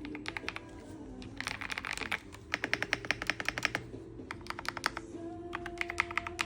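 Typing on an Ajazz AK35i V3 full-size mechanical keyboard with Ajazz linear switches: quick runs of key clacks broken by short pauses.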